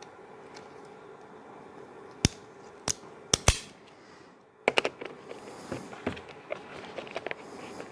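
Sharp metallic clicks and knocks of a Leatherman multi-tool and plastic mower parts being handled as a screw is driven in: four distinct clicks in a little over a second, then after a short pause a quicker run of small clicks and rustling.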